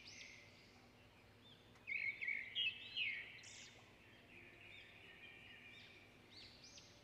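Small birds chirping repeatedly in the background, faint, with a louder burst of chirps about two to three seconds in.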